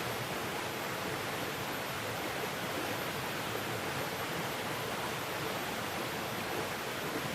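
Steady, unbroken rushing of flowing stream water.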